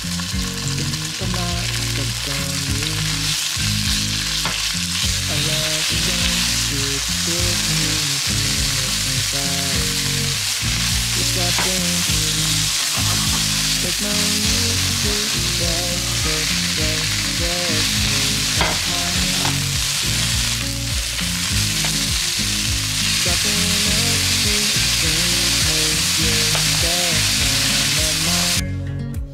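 Food sizzling steadily in a hot pan as it is stir-fried, over background music.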